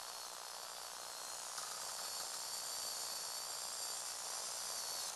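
Small electric motors and gears of a motorised Lego Technic power shovel running, a steady hissing whir with a thin high whine. It gets louder about a second and a half in and drops back at the very end.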